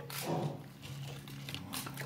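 Quiet chewing and mouth sounds of a person eating, with a few faint clicks, over a low steady hum.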